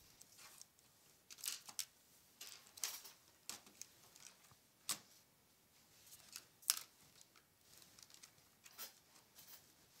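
Faint room ambience with scattered short clicks and rustles a second or two apart. The sharpest click comes near the seven-second mark.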